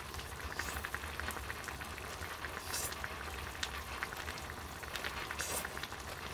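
Mala hot pot simmering, with a steady fine crackle of small bubbles. Twice there is a short slurp as noodles are eaten.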